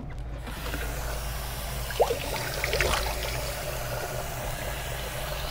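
Tap water running steadily into a sink, with a short squeak about two seconds in.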